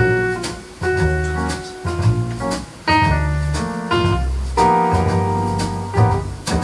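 Instrumental music: keyboard chords over a bass line, with regular drum hits.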